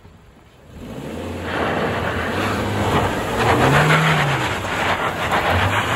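Suzuki Jimny's 1.5-litre four-cylinder petrol engine pulling hard up a sandy off-road climb, with tyres scrabbling and throwing loose sand and dirt. It starts about a second in, and the revs swell and fall back about four seconds in.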